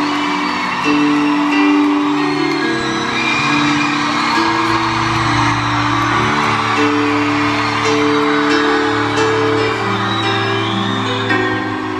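Live band music in an arena, held keyboard chords changing every second or two, heard through a phone microphone with the crowd cheering and an occasional whoop over it.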